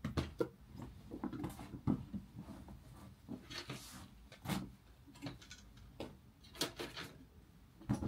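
Scattered light knocks and clicks with a brief rustle a little before the middle: small objects being handled in a small room.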